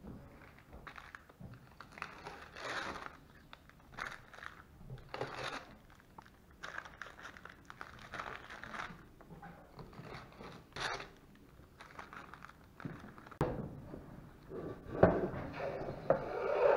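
Mylar packing tape being peeled off wooden cradles and crumpled, heard as irregular crinkling and tearing rustles. Louder knocks and handling noise come near the end.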